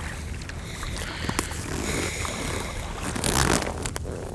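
Water lapping against a fishing kayak's hull, with a light knock about a second and a half in and a short scraping rustle about three seconds in.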